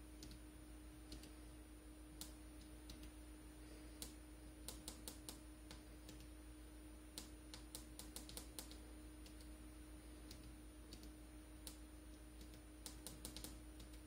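Small tactile push-button switches on a breadboard clicking faintly under a finger: single clicks, and a few quick runs of several presses, over a steady faint hum and high whine.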